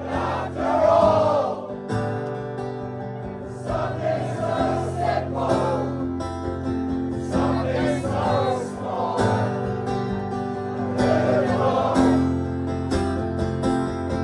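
A crowd singing a chorus together over a strummed acoustic guitar.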